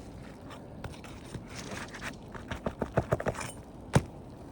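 Asphalt roof shingle being worked with a pry tool to pull its nails: scraping and a scatter of small clicks, ending in one sharp knock near the end.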